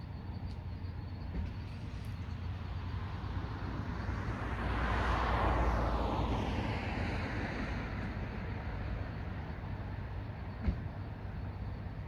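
A single car driving past: tyre and engine noise swells to a peak about halfway, then fades as its pitch slides down. A steady low rumble runs underneath, and a sharp click comes near the end.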